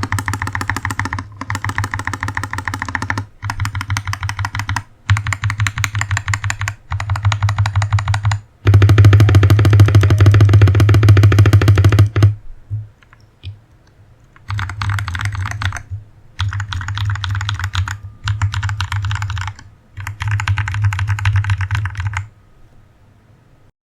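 Fast typing on a Press Play Orbiter67 barebones mechanical keyboard, the key switches clacking in quick runs of a second or two with brief pauses between. One longer, louder run comes in the middle, followed by a short pause, and the typing stops shortly before the end.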